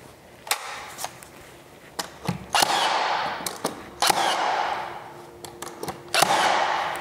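Cordless 18-gauge brad nailer firing three times into small wooden moulding, each shot a sharp crack followed by a fading rush of noise about a second long. A few lighter clicks come before the first shot.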